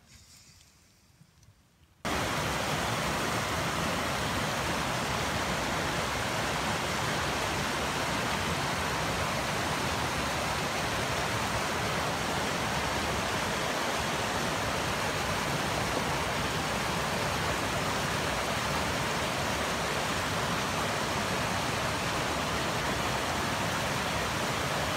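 Steady rush of a river running over rocky rapids, starting suddenly about two seconds in after near quiet.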